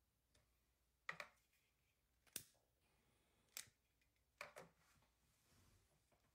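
A handful of short, sharp clicks, some in quick pairs, about a second apart, made while the small glass spirit burner of a model Stirling engine is being lit.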